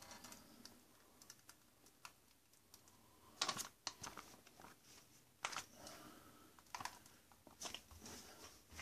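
Faint, scattered clicks and crinkles from a foil ration soup pouch being handled and emptied into a bowl. The loudest crinkle comes about three and a half seconds in.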